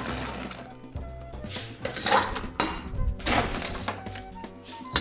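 Ice cubes scooped and dropped into the glass of a Boston cocktail shaker, clinking and rattling in several separate bursts, over background music.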